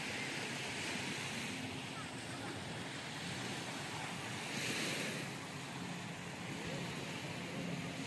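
Surf washing on a sandy beach: a steady hiss that swells briefly about halfway through.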